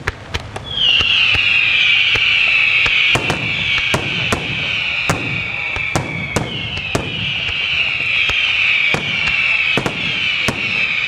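St. Mary Fireworks display fireworks: a loud chorus of many pyrotechnic whistles, each dipping slightly in pitch, starts about a second in and swells again partway through. Underneath runs a steady string of sharp bangs, about two a second.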